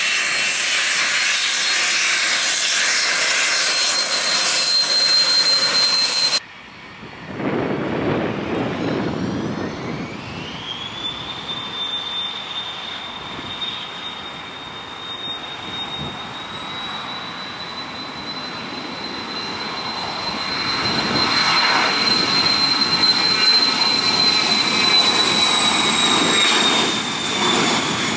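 Business jet's turbofan engines spooling up for takeoff: a whine rises in pitch, then holds as a steady high whine over engine rush that grows louder through the takeoff roll. It is preceded by a few seconds of loud jet hiss and whine that cut off abruptly.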